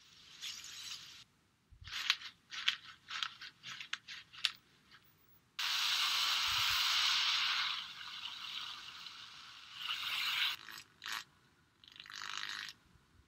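Foley props being worked: a quick run of mechanical clicks and rattles, then a sustained hiss-like rush for about two seconds, then more scraping and rattling near the end.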